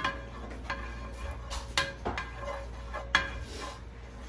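A cooking utensil knocking and scraping against a skillet as butter is stirred to melt it, with about four sharp clinks that ring briefly.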